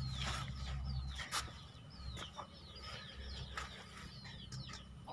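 Chickens calling: many short, high chirps that fall in pitch, a few a second, fairly faint.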